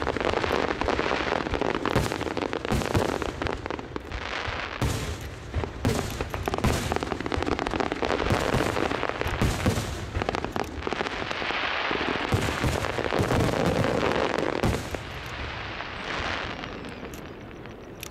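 Fireworks display: aerial shells and ground-fired comets going off in rapid, overlapping volleys of bangs and crackle. After about fifteen seconds the volleys thin out and the crackle fades.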